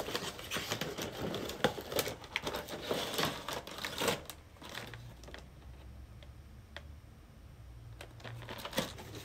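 Cardboard boxes and a plastic blister tray being handled: sliding, tapping and rustling with quick clicks, busiest in the first half, then only a few scattered clicks.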